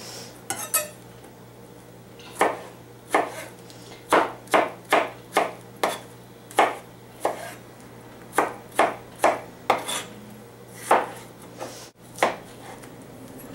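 A kitchen knife dicing fresh strawberries on a plastic cutting board: sharp taps of the blade striking the board, in irregular runs of a few cuts a second.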